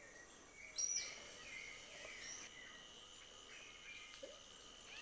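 Rainforest ambience: a steady high insect drone with several short bird chirps and calls over it, the loudest a sharp high call about a second in.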